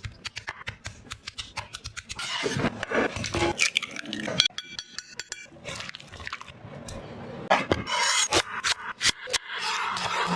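Kitchen utensils clinking and scraping against dishes and a pan in quick, irregular clicks and scrapes, with a brief run of rapid even ticking about halfway through.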